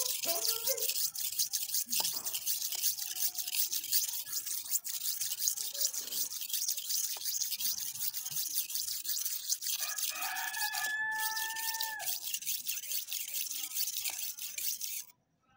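Steel knife blade scraping back and forth across a wet, freshly roughened red sharpening stone, a continuous gritty rasp of many quick strokes that stops abruptly near the end. A steady two-note tone sounds in the background for about two seconds partway through.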